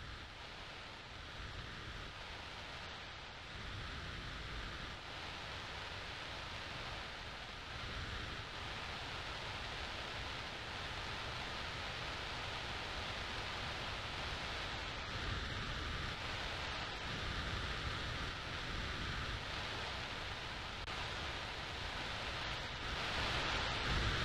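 A steady hiss with a low rumble under it, slowly growing louder, and a faint steady high tone running through it.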